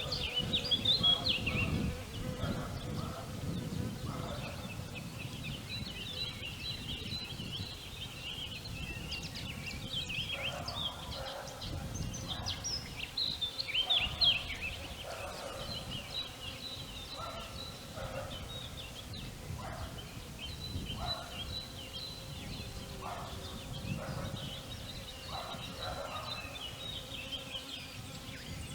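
Springtime village outdoor ambience: many small songbirds chirping and twittering throughout, with lower bird calls repeating every second or two over a low rumble.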